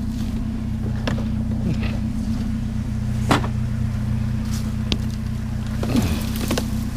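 Truck engine idling steadily, with a few knocks and clanks over it. The loudest knock comes about halfway through.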